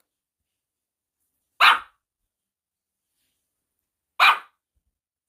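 A dog barking twice: two single short barks about two and a half seconds apart.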